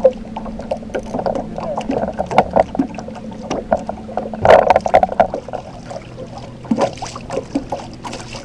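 Knocks and clatter of people stepping and handling gear in an aluminum fishing boat, with a louder bang about four and a half seconds in, over the steady low hum of the boat's motor.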